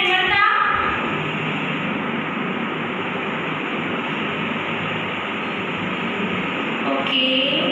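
Steady, even rushing noise with a low hum beneath it, unchanging throughout; a woman's voice trails off at the start and starts again near the end.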